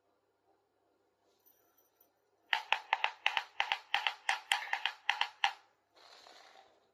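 Small plastic toy kitchen pieces clicking and tapping against each other in a quick run of about five sharp clicks a second for roughly three seconds, followed by a brief rustle.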